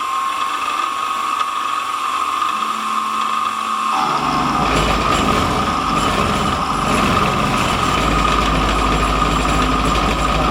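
CNC-converted Sieg SX2.7 mill cutting with a 6 mm four-flute carbide end mill at about 1800 rpm, taking a full-width slot cut: a steady high whine throughout, with a rougher, lower cutting noise coming in about four seconds in.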